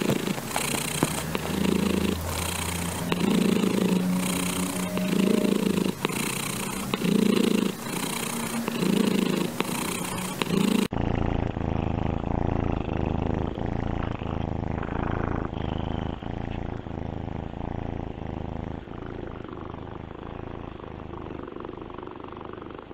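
Domestic cats purring. First a purr that swells and fades with each breath, about once a second. About 11 s in it changes abruptly to a second cat's duller purr with quicker, even pulses.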